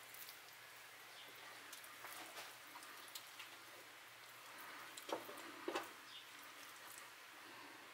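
Faint wet squishing and light clicks of raw chicken skin and bacon being handled and wrapped by hand on a metal sheet pan, with two slightly louder squelches about five and six seconds in.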